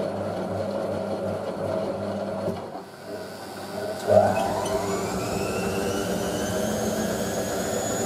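Vintage 1986 Hotpoint 9530 washing machine running, its motor humming steadily as the drum turns. About three seconds in it drops away briefly, then about a second later the motor starts again with a sudden surge and a whine that rises in pitch as the drum speeds up into a spin between rinses.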